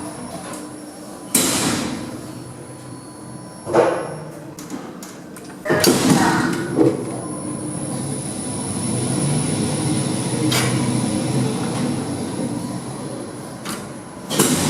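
A modern goods lift running: a steady mechanical hum from the moving car, broken by several sharp clunks and knocks from the doors and gates and from the car's mechanism, the loudest a little under halfway through.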